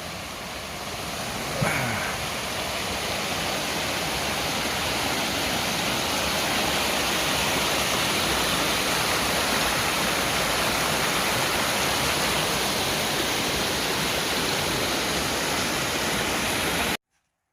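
Woodfin Cascades waterfall: a steady rush of falling water, growing louder over the first few seconds, then holding even until it cuts off abruptly near the end.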